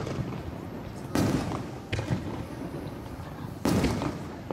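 Aerial firework shells bursting: a bang about a second in, a smaller one just after, and a loud one near the end. Each fades out over about half a second.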